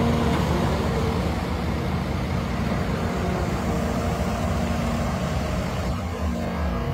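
Caterpillar 336 hydraulic excavator working, its diesel engine running steadily under load with a steady hum over it as it swings a loaded bucket toward a dump truck.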